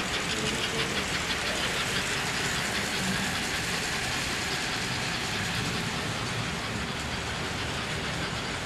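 Model trains running on an O-gauge layout: a steady whir of motors with fast, even clicking of wheels over the track.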